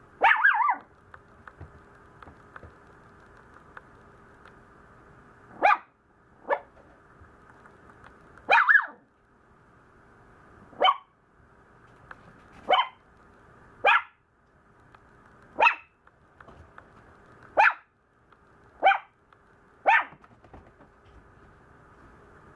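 Maltese puppy barking about eleven times in short, high-pitched complaining barks. The first bark comes right at the start, then after a pause of about five seconds the barks follow every second or two.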